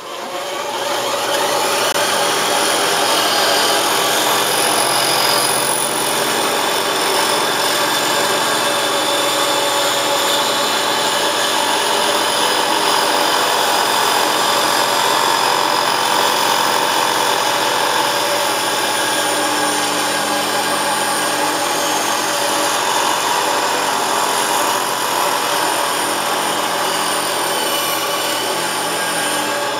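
Studio Pro Precision 2000 band saw running and cutting a curve through a thin sheet of wood: a steady motor and blade noise that dies away near the end as the cut finishes.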